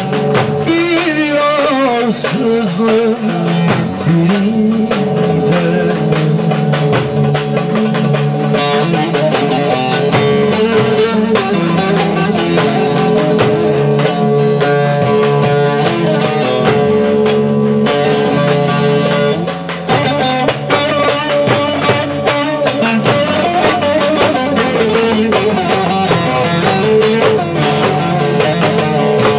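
A bağlama (long-necked Turkish saz) played in a slow Anatolian folk song, amplified through a PA, with a man singing a sliding, ornamented vocal line over it at times.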